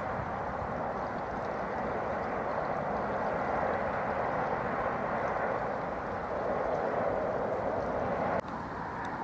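Shallow river running over stones: a steady rushing hiss that drops suddenly to a quieter rush near the end.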